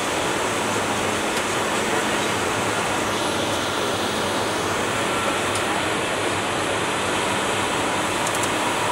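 Steady rush of airflow and engine noise heard inside the cockpit of a Bombardier Global 6000 business jet on final approach, with a faint steady whine over it.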